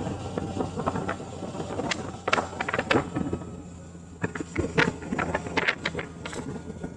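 Touring motorcycle, a Honda Gold Wing, riding with a steady low engine hum, while wind and rubbing on the helmet microphone make irregular crackling clicks.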